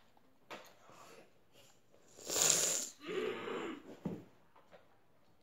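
A boy with a mouthful of chewy candy lets out a loud rush of breath about two seconds in, followed by a short, wavering throaty vocal sound.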